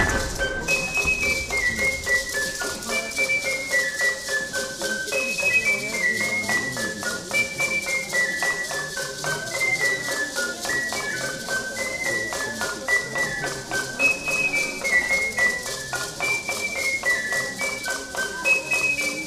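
Live traditional Totonac dance music: a high cane flute plays short falling phrases over and over, over a fast, even beat on a small drum.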